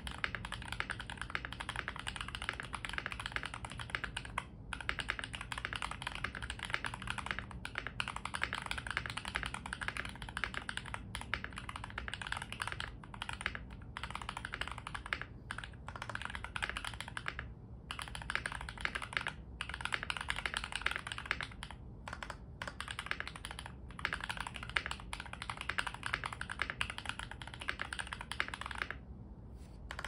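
Continuous typing on a modded DK68 mechanical keyboard with lubed MMD Holy Panda tactile switches, a foam-filled, tape-modded case and Cherry-profile keycaps. Keystrokes come in a rapid stream of clacks with brief pauses every few seconds and a longer one near the end, in a deep sound profile described as thocky and marbly.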